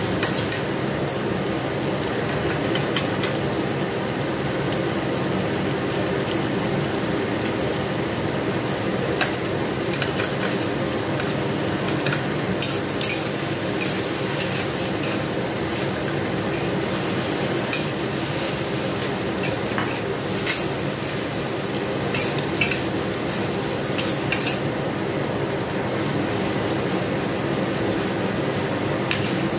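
Bell peppers and mushrooms sizzling in a steel wok as a metal spatula stir-fries them, scraping and clinking against the pan many times, over a steady hum.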